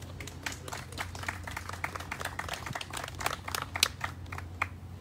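A small group of people applauding: scattered, uneven hand claps that thin out and stop near the end.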